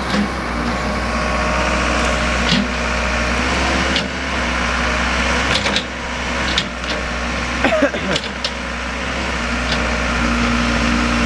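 Backhoe engine running steadily, with scattered short knocks and clicks over it.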